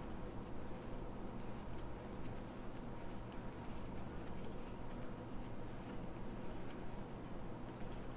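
Faint rustling and light scratchy clicks of a crochet hook working yarn through stitches, over a low steady hum.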